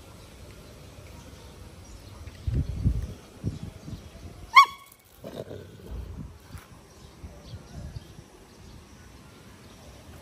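Two dogs meeting and sniffing: one dog gives a single short, high yelp about halfway through. Low rumbling sounds come a second or two before it.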